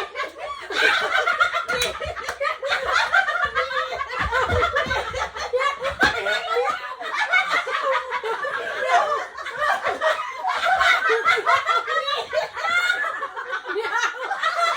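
People laughing in rapid, continuous bursts, with a few brief pauses.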